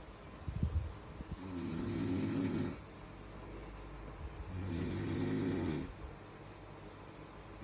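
A man snoring in his sleep: two snores about three seconds apart, each lasting over a second, with quieter breathing between them and a third snore starting at the very end.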